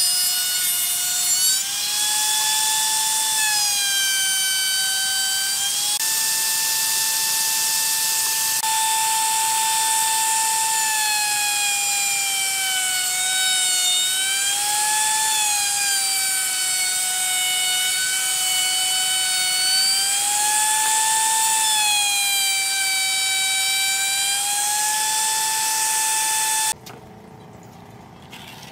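Table-mounted wood router running at high speed, a steady high whine whose pitch sags and rises again several times as boards are fed across its bearing-guided profile bit. The whine stops abruptly near the end.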